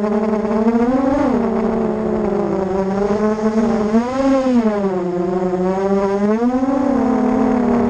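Buzz of a ZMR250-clone 250 mm racing quadcopter's four brushless motors and propellers (RCX 2205 2300KV motors on a 4S battery), heard from a camera on the frame. The pitch swells up and falls back three times, about one, four and six and a half seconds in, as the throttle is pushed and eased during low, fast flying.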